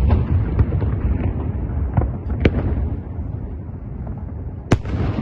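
Fireworks bursting overhead: a continuous run of deep booms, with sharp cracks standing out about two and a half seconds in and again near the end.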